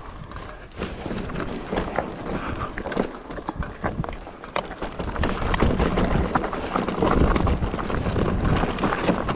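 Mountain bike clattering and knocking over rough, rocky ground: a dense run of sharp rattles and thuds that grows louder about halfway through.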